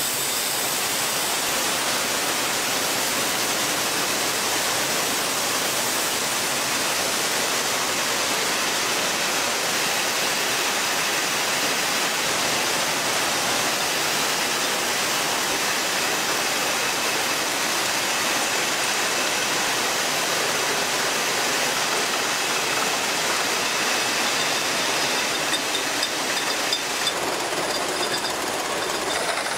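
Steady hiss and running noise of bottling-line conveyors and machinery, with a few sharper clicks near the end.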